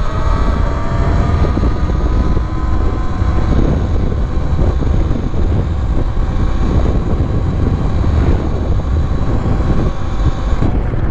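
Talaria Sting R electric dirt bike's motor whining at full throttle on a top-speed run. The whine rises a little at first and then holds steady, and it drops away shortly before the end. Heavy wind buffets the microphone throughout.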